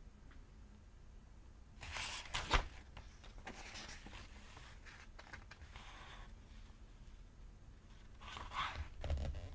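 Paper pages being turned by hand: a series of separate papery swishes, about four page turns, the loudest one about two and a half seconds in ending in a sharp snap of paper.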